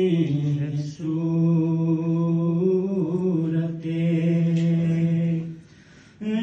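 A man chanting a manqabat, a devotional poem, solo and unaccompanied in long held notes. He breaks off for a breath about a second in and again briefly near the end.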